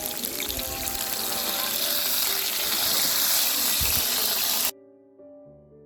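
Rushing water over soft background music; the water cuts off suddenly near the end, leaving only the music.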